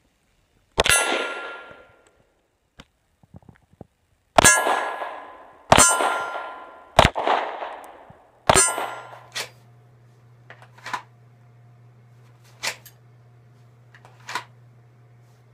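Five shots from a Glock 19 9mm pistol, each answered by the ringing clang of a struck steel target. The first comes about a second in; the other four follow about a second and a half apart. After that there is a steady low hum with a few light clicks.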